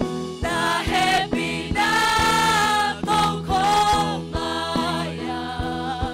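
Gospel song sung with instrumental accompaniment and a steady beat; held, gliding sung notes carry the melody.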